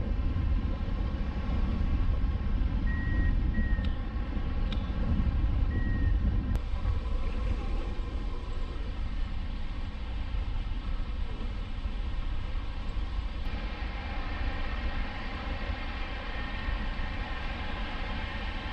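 Wind rushing over the microphone of a camera mounted on a hang glider's wing in flight: a heavy low rumble of buffeting with a steady buzzing hum over it. The rumble eases about a third of the way through.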